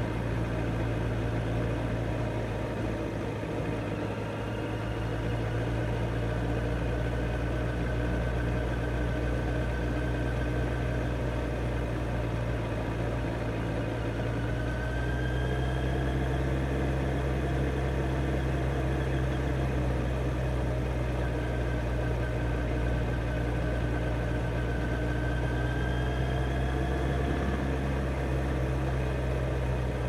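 Kawasaki Z900's inline-four engine running at a steady, unchanging speed. Fainter tones rise and fall slowly above it.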